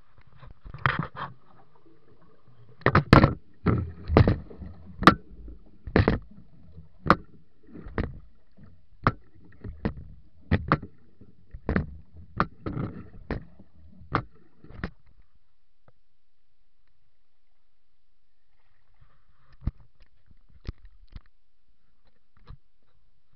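A series of heavy thumps and knocks against a small fishing boat, irregular, roughly one a second, while a yellowfin tuna is being landed. They stop after about fifteen seconds, and a few faint knocks follow near the end.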